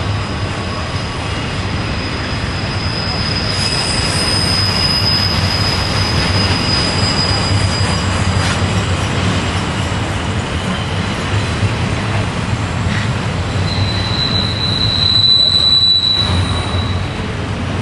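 Double-stack intermodal freight train rolling past with a steady low rumble, its wheel flanges squealing on the tight curve. One long high squeal runs through the first half, and a louder, slightly lower squeal comes near the end.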